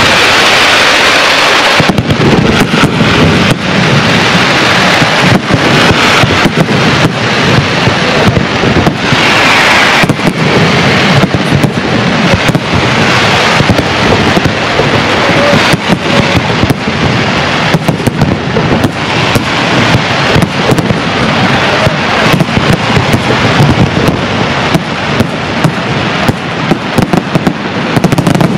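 Aerial fireworks display: shells and comets bursting in rapid succession, a dense, unbroken run of bangs and crackling. A hissing rush over the first two seconds as comets rise.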